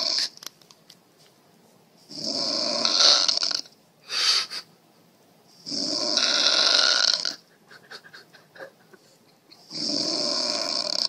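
A woman snoring in her sleep: three long snores about four seconds apart, the first followed by a short, brief breath.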